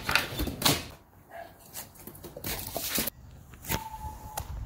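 Knocks and clatter of a house door being opened and closed on the way outside, with a short steady tone near the end.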